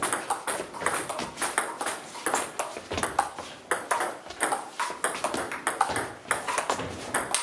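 Table tennis ball clicking off the bats and the JOOLA table in a fast rally: sharp, irregular clicks, several a second.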